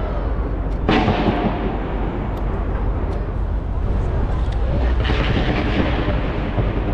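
Fireworks launched from a skyscraper going off: a sharp bang about a second in, then a continuous rumble of further bursts, with denser crackling starting about five seconds in.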